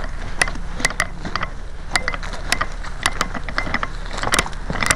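Irregular sharp mechanical clicks and knocks, one to three a second, over a steady hiss, with a quick cluster of them about four seconds in.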